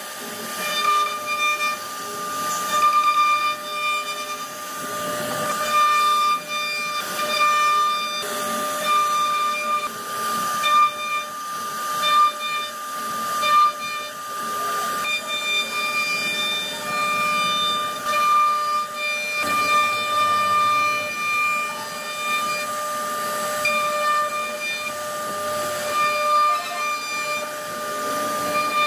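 CNC router spindle whining at a steady high pitch while its cutter carves a wooden panel. A hissing cutting noise swells and fades every second or two as the bit works through the wood.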